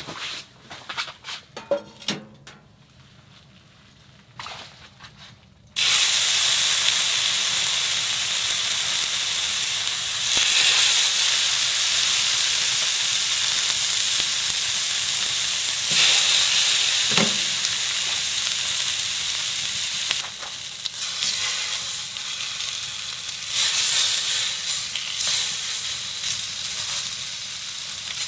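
A few light clicks and knocks, then about six seconds in a loud, steady sizzling starts suddenly: food frying in a hot pan.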